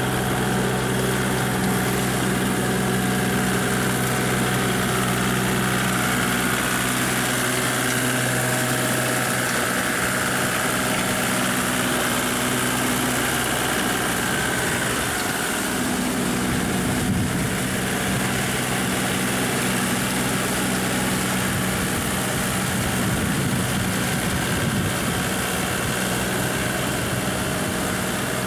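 Kubota compact tractor's diesel engine running steadily as it pulls a rear rotary tiller through flooded paddy mud. The engine note changes about halfway through.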